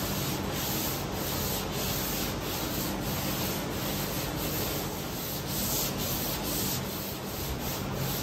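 Hand block sanding: 220-grit sandpaper on a hand sanding block rubbing back and forth over a truck hood coated in high-build primer and guide coat, in steady repeated strokes.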